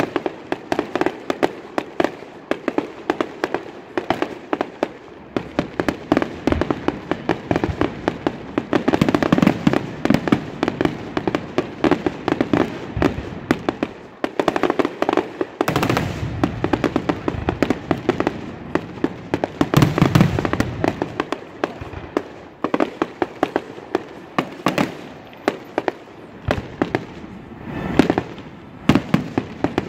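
Fireworks display finale: aerial shells bursting and crackling in a rapid, unbroken barrage, many bangs a second, with heavier volleys about a third of the way in, about two-thirds in and near the end.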